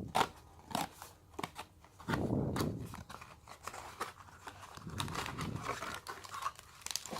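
Small cardboard box being opened by hand: irregular clicks and taps of cardboard, with scraping and rustling of the packaging, louder for a moment about two seconds in.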